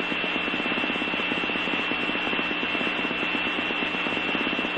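Fire dispatch radio channel with no one talking: steady static hiss, with a steady high tone and a fast, low buzz running under it.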